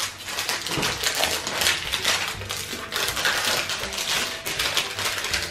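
Crinkling and crackling of clear plastic wrap being peeled and torn off a hard plastic egg-shaped container, with irregular crackles throughout.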